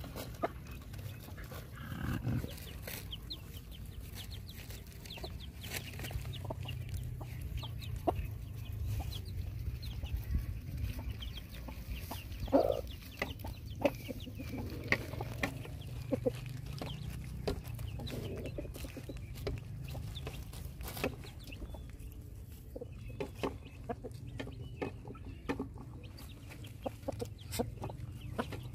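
Chickens clucking among feeding puppies, over many small clicks and crunches of the puppies eating from a plastic bag.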